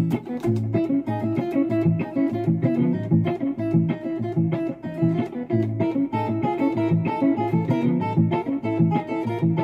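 Guitar playing a looped, repeating plucked pattern, several layers of notes sounding together in a steady pulse.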